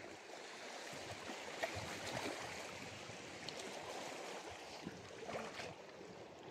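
Small waves washing and lapping over rocks at the water's edge, with a few faint clicks.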